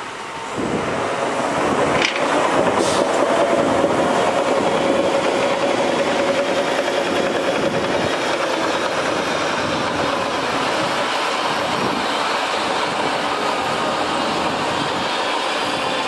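Dump truck's engine and hydraulic hoist running as the loaded tipper bed rises to dump dirt, a steady mechanical noise with a steady whine over it.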